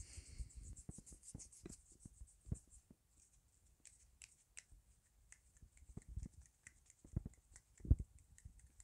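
Soft, irregular finger snaps and fingertip rubbing close to a lapel microphone, made as ASMR hand sounds, with the loudest click about eight seconds in.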